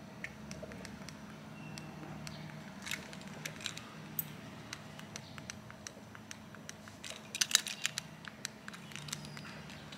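A bunch of keys with an auto-gate remote fob being handled: light clicks and jingles throughout, with a louder cluster of clicks about seven and a half seconds in, over a faint steady low hum.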